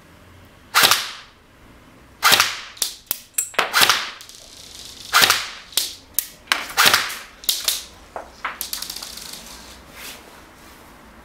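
Snow Wolf M41A pulse rifle airsoft electric gun firing 0.2 g BBs: sharp shots at irregular spacing, singly and in short strings, then a quick run at about nine shots a second near the end.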